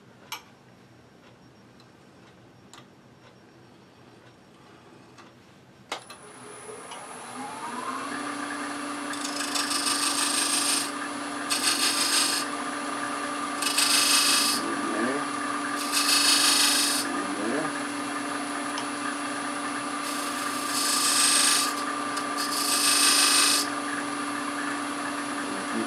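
Wood lathe switched on with a click about six seconds in, its motor hum rising for a couple of seconds and then holding steady. A small hand-held turning tool then scrapes against the spinning wooden box six times, each cut lasting a second or two.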